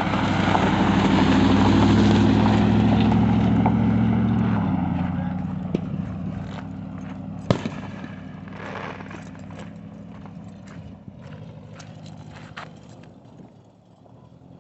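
A vehicle's engine running close by, loud and steady, which cuts back sharply about four and a half seconds in. It is followed by scattered sharp clicks and pops, the loudest about halfway through.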